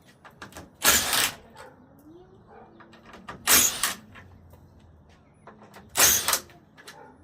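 Three short, loud noisy bursts about two and a half seconds apart, from hand work on the front end of a 1996 Ford F-150 as fasteners are undone to take the grille off.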